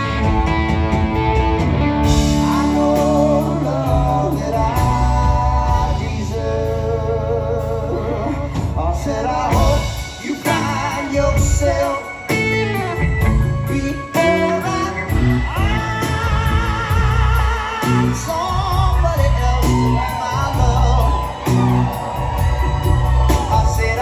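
Live rock band playing: electric guitars, bass and drums, with long held, wavering lead notes over the beat, recorded from the audience.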